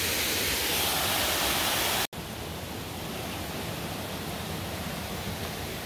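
Steady rush of a forest waterfall and stream. About two seconds in it breaks off for an instant and comes back quieter and duller.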